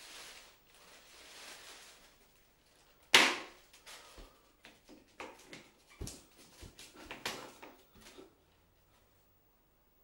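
A soft rustle, then one sharp knock a little after three seconds in, followed by a run of lighter, irregular clicks and knocks.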